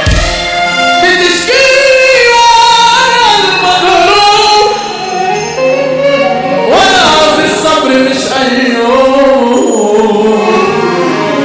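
Egyptian mahraganat song playing: a passage without recognised words, its melodic lead sliding between notes over the backing.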